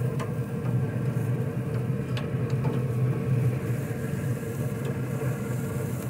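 A steady low mechanical hum, like a motor or engine running, with a few light metallic clicks from grill tongs.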